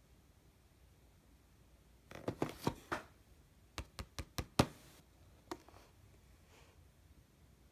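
Knocks and handling of a cardboard retail box, then a finger tapping on the box five times in quick succession, the last tap loudest, followed by a couple of faint taps.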